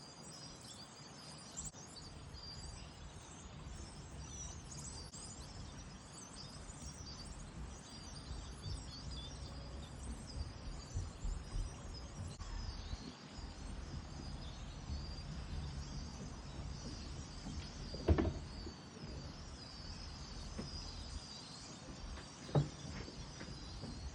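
A large flock of small birds calling from trees, a dense, continuous chatter of high chirps over a low outdoor rumble. Two brief, louder sounds break through about 18 and 22 seconds in.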